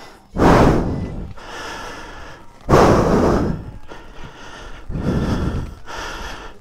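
Heavy breathing close to the microphone: four loud, rushing breaths about two seconds apart.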